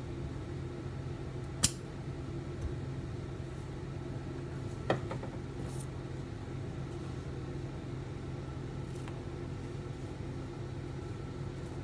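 Small airbrush compressor motor running with a steady hum. Two sharp clicks, the louder one about a second and a half in and another about five seconds in.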